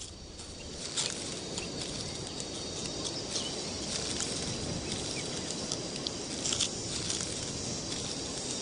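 Outdoor nature ambience: a steady hiss with a faint high insect whine and a few scattered light clicks and taps.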